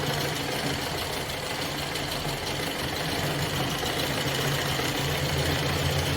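Sewing machine running steadily without a pause, stitching fabric with a continuous low hum and rapid needle clatter.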